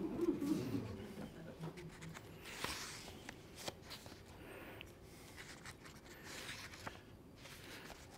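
Pages of a paperback book being turned and rustling, with scattered light handling clicks, as the reader leafs through in search of a page.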